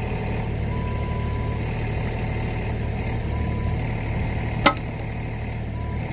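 Small excavator's engine idling steadily, with a single sharp metallic clink about three-quarters of the way through.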